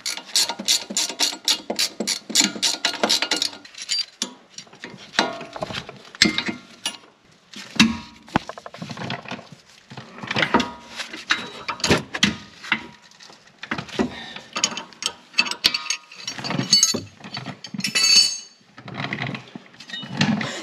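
Ratcheting wrench clicking as it turns the sway bar end link nut. It starts with a fast, even run of clicks for the first few seconds, then goes on in shorter, irregular runs.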